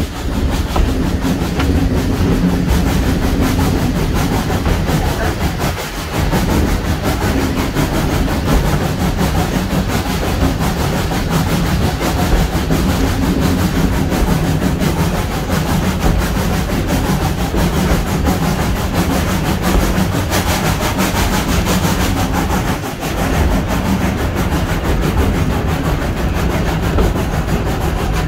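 1927 SACM 040T steam tank locomotive and its train running along the line, heard from the open carriage right behind it: a loud, steady rumble of the locomotive and of wheels on the rails, with a low hum underneath.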